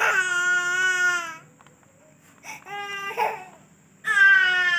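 Baby crying in long, held wails: one running on through the first second or so, a shorter, broken cry around the middle, and another long wail starting near the end.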